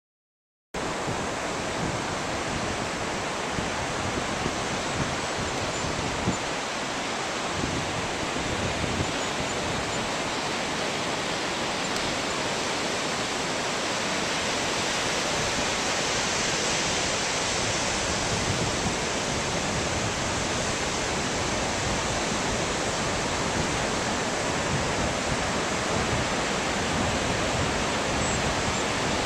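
Ocean surf breaking on a sandy beach: a steady rush of waves that cuts in abruptly under a second in.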